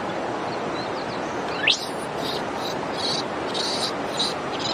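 Outdoor background: a steady hiss with repeated short, high, bird-like chirps. About a second and a half in comes one brief, loud squeak that rises sharply in pitch.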